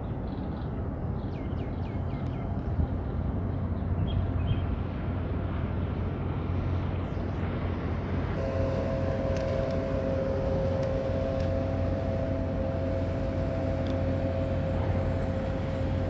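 Large container ship's engine giving a steady low drone as it passes close, with a steady whine joining about eight seconds in.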